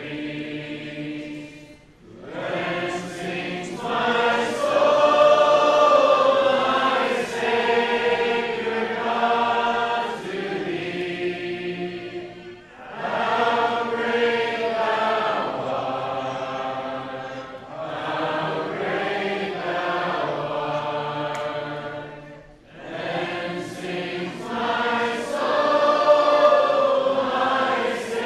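A congregation singing a hymn together, many voices holding long notes, with short breaks between lines about every ten seconds.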